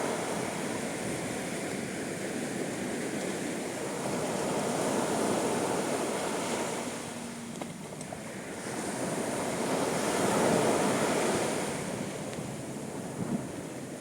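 Sea waves breaking and washing up a sandy beach at high tide, a continuous surf wash that swells twice, about five and ten seconds in.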